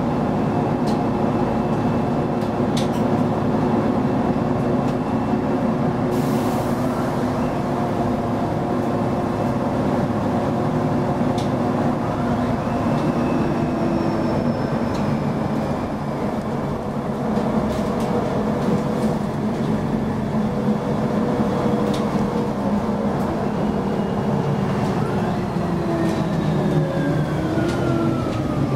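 Interior running noise of a Mercedes-Benz Citaro G articulated bus under way: its OM 457 hLA diesel and Voith automatic transmission hum steadily with several held tones. The tones fall in pitch near the end as the bus slows, with occasional light rattles.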